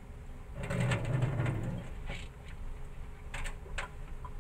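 Hands rubbing soaked black glutinous rice in a plastic bowl, the grains rasping against the plastic, heaviest about a second in. Two sharp clicks of the bowl being handled a little over three seconds in.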